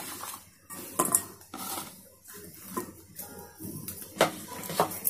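Sliced onions tipped off a plate into a steel bowl of potato slices and pushed around by hand: a soft rustle of onion slices with several light knocks of the plate and hand against the steel bowl.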